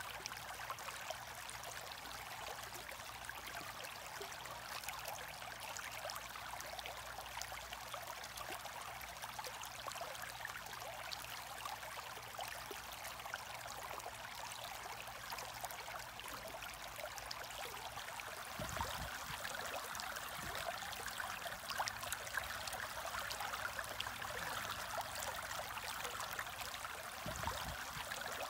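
Aquarium water trickling and bubbling steadily, a little louder in the last third.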